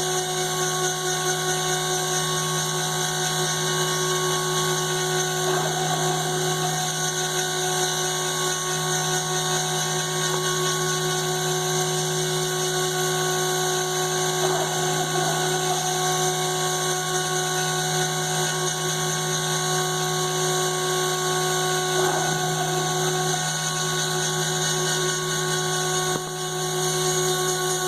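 CNC router spindle running steadily with a constant whine of several tones while cutting. Three short, rougher patches come about eight seconds apart.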